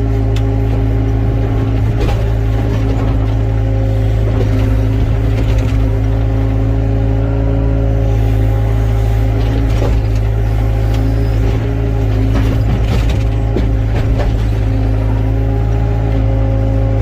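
Excavator's diesel engine running steadily under work, with a few short knocks along the way.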